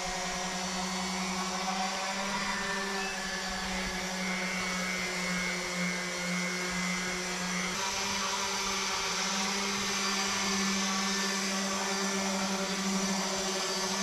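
An electric power tool's motor running steadily with a constant hum and a hiss over it, most likely a sander or similar tool worked on the bench in the background.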